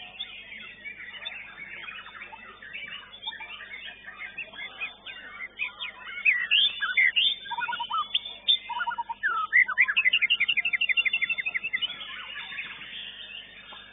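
Caged songbird singing a varied run of whistled phrases and chirps, ending in a fast series of repeated notes, about eight a second, from about ten to twelve seconds in.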